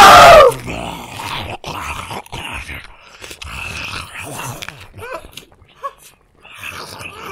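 A loud wavering scream that falls and cuts off about half a second in, then the drama's monster sound effect: low growling with irregular clicks and short noises as the creature feeds on its victim.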